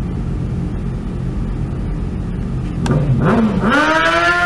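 Motorcycle engine idling with a low rumble, then about three seconds in the engine note dips briefly and climbs steadily as the bike revs up and accelerates away.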